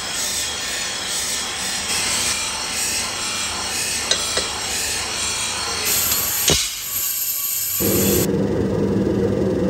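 Drill press boring through a hardened steel cleaver blank cut from a truck leaf spring, the twist bit grinding steadily as steel curls come off. About eight seconds in it gives way to a steady low hum with one held tone, from the forge's electric blower.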